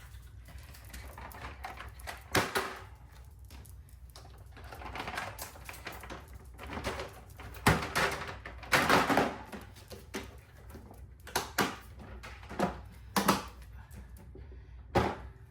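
A collapsible dog crate being folded down by hand: irregular clicks, knocks and rattles as its panels and joints collapse, with rustling between them.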